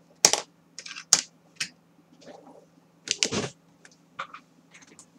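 Clear plastic ruler being set down and shifted on thick cardstock over a cutting mat: a string of light taps and clicks, several close together about three seconds in.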